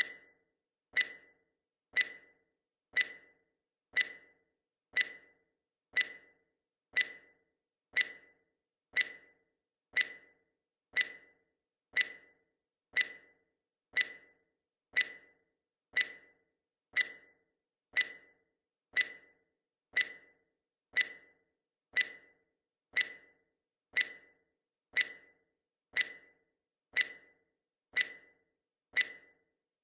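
Countdown timer tick sound effect: a sharp clock-like tick once every second, each one dying away quickly.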